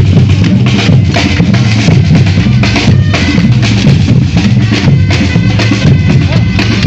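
Batucada street percussion band playing together: deep bass drums under snares and other drums in a fast, steady rhythm.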